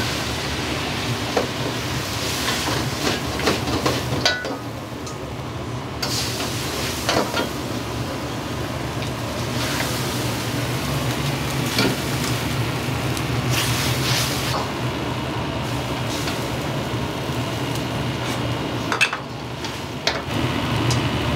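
Cooking in a Chinese wok: food sizzling, with a ladle clanking and scraping against the wok in scattered knocks. A steady low hum runs underneath.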